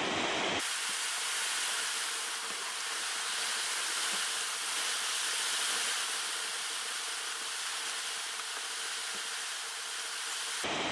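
A steady hiss that starts suddenly just after the beginning and cuts off suddenly near the end, with a faint steady hum under it.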